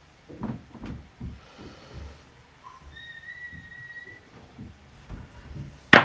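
Chips and dice being handled on a craps table, with light clicks and knocks. A brief whistled note about three seconds in, and a sharp clatter just before the end as the dice are thrown.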